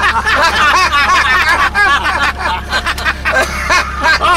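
Several elderly men laughing heartily together, their overlapping laughs rising and falling, over a steady low hum of the car they are riding in.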